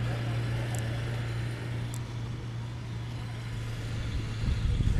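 A vehicle's engine running steadily and fading as it pulls away, over a haze of outdoor noise, with a few low thumps near the end.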